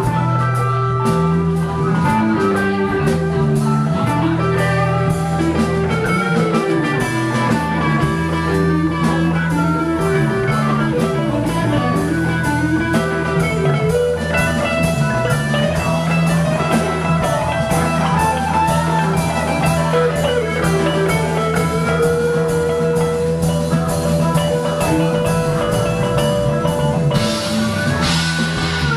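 Live blues-rock band playing: a harmonica solo over electric guitar, bass, keyboard and drum kit. The cymbals get louder near the end.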